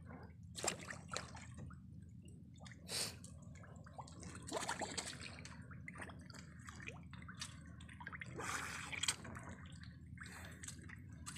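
Faint, irregular water splashes and drips around a small outrigger boat at sea, over a low steady rumble.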